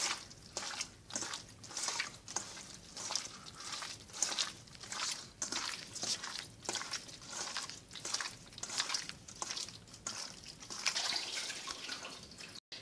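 A hand squishing and kneading raw chicken pieces in a wet spice paste of ginger, garlic and onion in a stainless steel bowl: a run of wet squelches, about two a second, cut off abruptly near the end.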